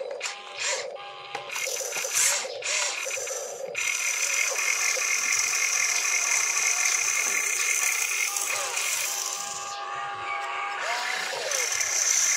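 Electric motors and gearboxes of a toy RC crawler excavator whining as it works its arm and swings its upper body. The first few seconds are short stop-start whines with clicks; after that the whine runs steady at one high pitch, dips about ten seconds in, and rises again near the end.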